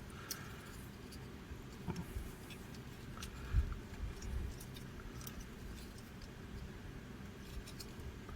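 Faint clicks and light taps of a transformable robot figure's parts being handled and repositioned during its transformation, with a soft knock about three and a half seconds in.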